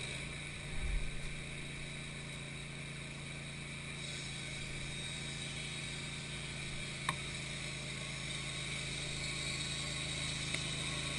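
Wood-Mizer LT15 sawmill running steadily, with a few low knocks about a second in and a sharp click later on.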